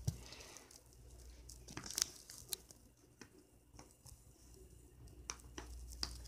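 Puppy chewing and gnawing, heard as a faint scatter of soft clicks, snaps and rustles.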